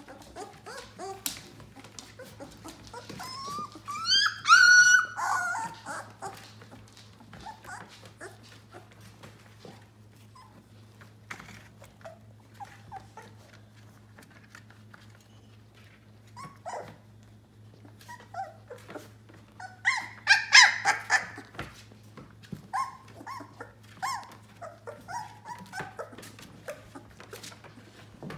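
Yellow Labrador puppies, 18 days old, crying out as they play: a loud rising squeal about four seconds in, a burst of cries around twenty seconds, and short high yelps after it, with light scratching and shuffling between.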